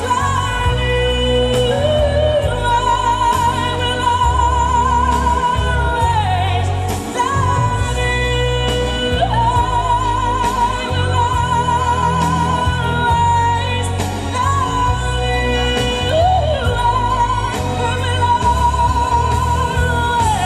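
Music with a singing voice holding long, wavering notes over a steady bass.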